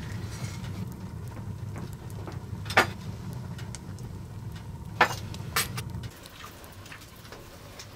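Three sharp clinks of glass tea glasses and tableware being handled on a table, over a steady low hum that stops about six seconds in.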